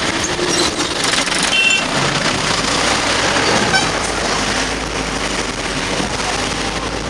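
Running road-vehicle noise heard from inside the vehicle: engine and tyre noise mixed with passing trucks and cars close alongside, with a short horn toot about a second and a half in.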